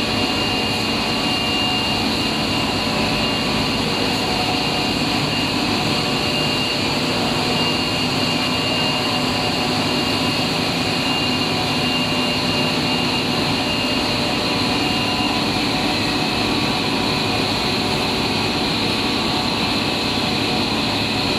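Cast stretch film machine running: a steady industrial machine noise with a constant high whine and a low hum, unchanging throughout.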